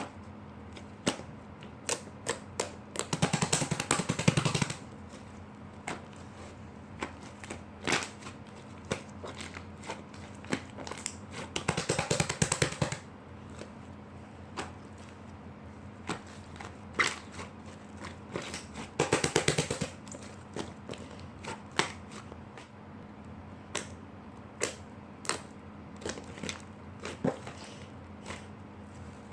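Slime being squished and worked by hand: scattered sharp pops and clicks, with three runs of rapid crackling, a few seconds in, near the middle and about two thirds through.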